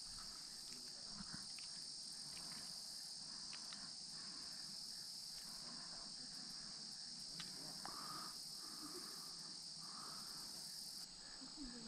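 Faint, steady high-pitched chorus of insects calling from the shoreline vegetation.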